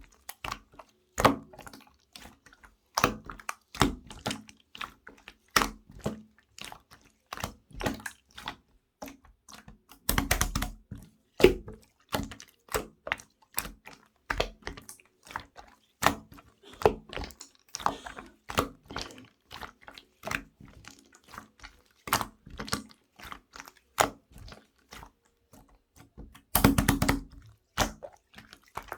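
Green pearl slime being squeezed and folded by hand, giving a run of irregular sharp clicks and wet pops. There are denser crackling stretches about ten seconds in and near the end.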